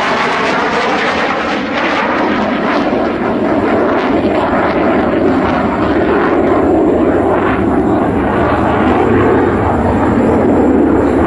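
Loud, steady jet noise from an F-16A Block 15 fighter's single turbofan engine in display flight, with a crackling edge. It swells somewhat louder partway through.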